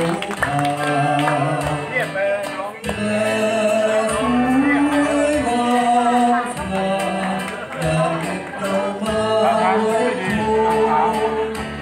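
A man singing into a microphone over backing music, both amplified through PA speakers in a large hall.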